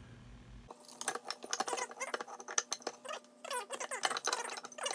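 Quick, irregular clicks and scratchy metal scrapes and clinks, starting about a second in, as the cast cover of a Jaguar V8 eDiff (electronically controlled differential) is worked loose and lifted off its housing.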